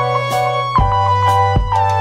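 Background music with a steady beat: held melody notes over a sustained bass note, with a low thump about every 0.8 seconds.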